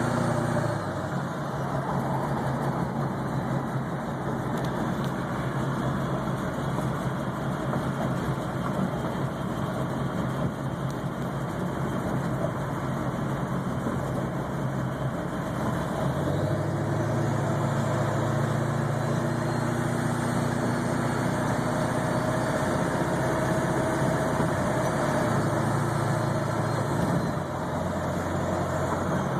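Ford 7.3 Powerstroke V8 turbodiesel idling, its deep low note swelling and fading a few times rather than holding even. This is the rough, uneven idle that the owner suspects comes from a bad injection control pressure (ICP) sensor or fuel pressure regulator.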